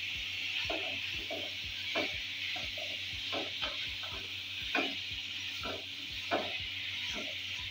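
Minced meat and potato cubes sizzling in oil in a kadhai while a wooden spatula stirs them. A steady frying hiss runs under irregular scrapes and knocks of the spatula against the pan, roughly one or two a second.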